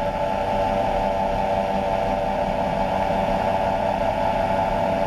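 Engine and pusher propeller of a weight-shift ultralight trike running steadily in flight, an even drone that holds one pitch.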